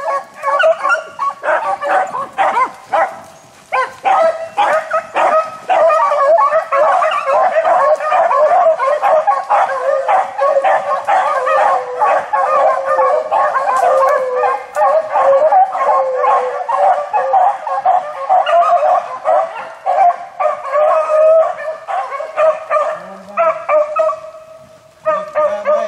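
A pack of beagles baying and yelping as they run a rabbit's scent trail. A few separate calls at first, then from about five seconds in many voices overlap into a continuous chorus, which thins out near the end.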